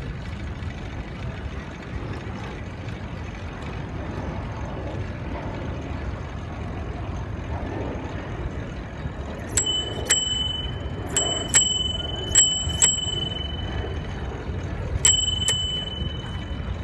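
A bicycle bell rung in four quick double rings (ding-ding) through the second half, warning walkers on the path ahead. Under it runs a steady low rumble of wind and tyre noise from the moving bike.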